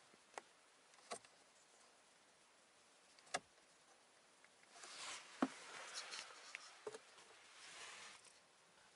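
Quiet car cabin with a handful of short, sharp clicks spread through it, as of dashboard buttons being pressed, and two stretches of soft rustling in the second half.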